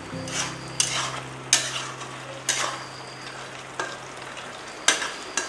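Metal spatula stirring and scraping pork and potatoes through a steel kadai, with about seven sharp scrapes against the pan over a steady sizzle of the wet masala frying. The scraping loosens masala stuck to the bottom after water has been added. A low steady hum runs underneath and cuts out near the end.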